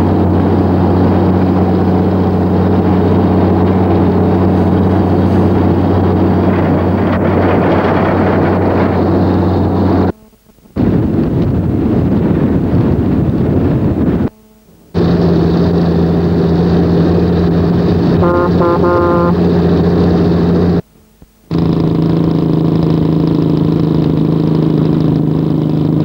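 Heavy road-train truck's diesel engine running at a steady cruise, a deep even drone with wind and road noise, heard from on board the moving rig. The sound cuts out briefly three times.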